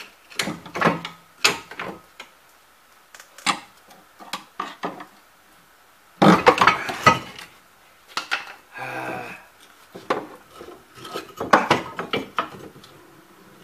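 Irregular metal clanks and knocks as a 1995 Chevrolet Lumina's rear strut assembly is worked loose and pulled out, with the loudest run of knocking about six seconds in and a brief buzz about nine seconds in.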